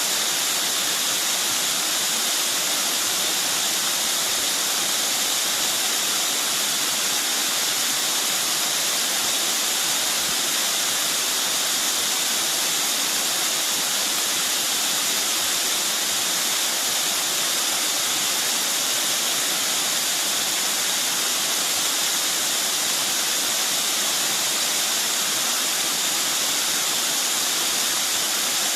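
Mountain stream water rushing steadily over rocks in a continuous, even wash of noise.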